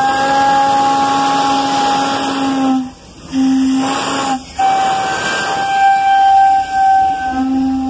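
Steam locomotive's whistle blowing several blasts: a long one of about three seconds, a short one, then two more that run together near the end. Hissing steam runs underneath as the locomotive pulls out.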